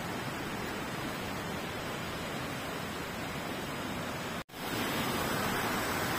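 Steady rushing noise with no distinct events. It cuts out for an instant about four and a half seconds in, then resumes slightly brighter.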